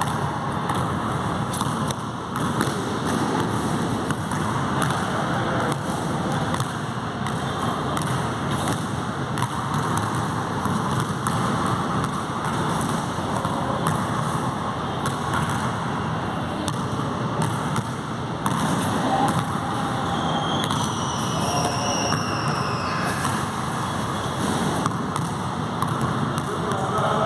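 A basketball being dribbled on an indoor court floor, repeated knocks over a steady loud noise, with a couple of falling high tones about twenty seconds in.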